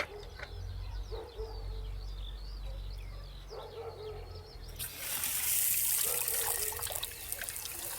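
Water rushing out in a steady spray. It starts suddenly about five seconds in, after a few seconds of faint bird chirps.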